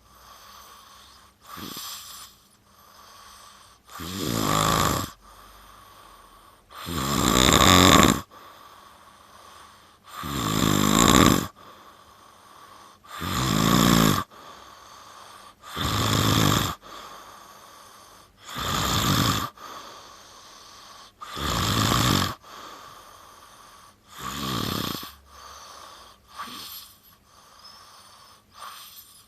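A person snoring loudly and rhythmically: about eight loud snores, each lasting about a second and coming roughly every three seconds, then a couple of softer ones near the end.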